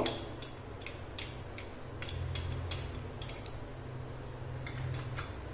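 Metal spoon tapping and clinking against glass bowls, about a dozen light taps at uneven intervals, as red chilli powder is knocked out of a small glass bowl into a larger one. A faint low hum runs underneath.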